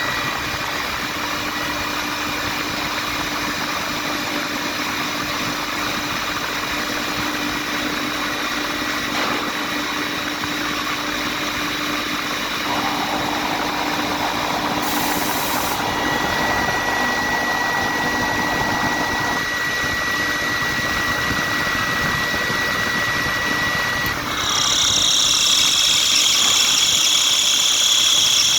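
Atlas Copco GA15 belt-driven rotary screw air compressor running with a steady hum and a faint high tone. About 24 seconds in, it gets louder and a strong high-pitched whine joins it. This is the abnormal running sound that is put down to a belt problem.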